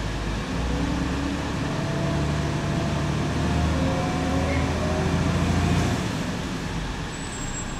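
Iveco Tector 6 diesel engine and Allison six-speed automatic gearbox of a Heuliez GX 127 city bus, heard from inside the passenger cabin while the bus is driving. The engine note climbs steadily under load for about five seconds, then eases off near the end.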